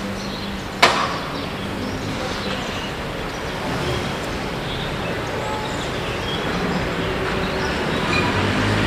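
Steady street traffic noise, with a single sharp knock about a second in.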